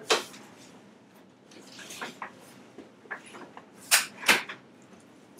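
A person turning over on a padded chiropractic table: rustling of body and clothing against the table with a few knocks and clacks, the two loudest close together about four seconds in.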